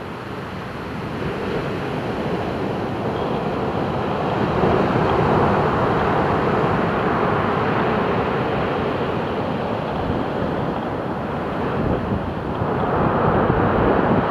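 Ocean surf: waves breaking and washing up a beach in a steady rushing wash, growing louder over the first few seconds and swelling again near the end.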